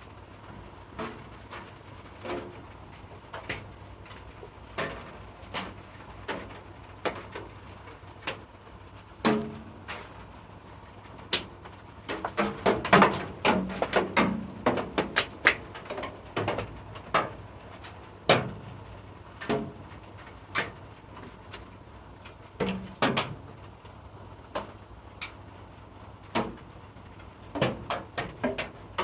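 Irregular small clicks and knocks of tools and small objects being handled and set down on a workbench, in clusters with quiet gaps and busiest in the middle, over a low steady hum.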